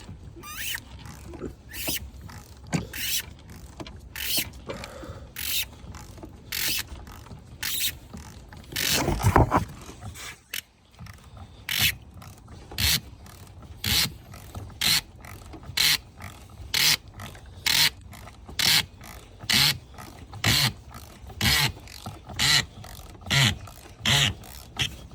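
Ratchet wrench with a 32 mm socket clicking in short bursts about once a second, one burst per back-stroke, as it turns the oil filter housing cap loose. A louder, deeper knock comes about nine seconds in.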